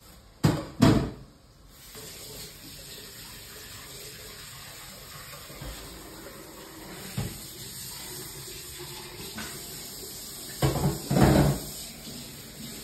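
Water running steadily from a kitchen tap into a sink. There are two loud bumps just after the start and a burst of louder bumps near the end.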